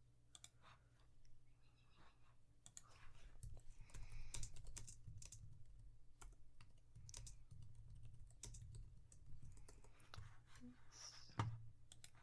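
Faint, irregular typing on a computer keyboard, with scattered clicks.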